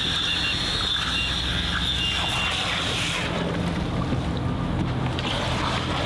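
Boat engine idling steadily, a low hum, with wind noise on the microphone.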